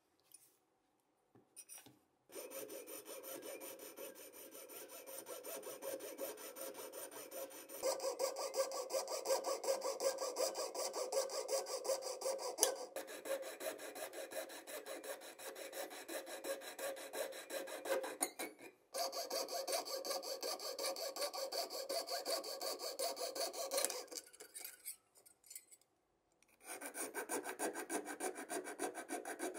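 Fine-toothed jeweler's saw blade cutting through the diecast metal body of a toy car in rapid back-and-forth strokes, starting about two seconds in and pausing briefly twice. Near the end a small file rasps on the fresh cut.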